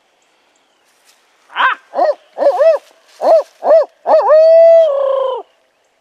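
Barred owl hoot: about six short rising-and-falling hoots in a quick rhythm, then one long drawn-out note that drops in pitch at its end.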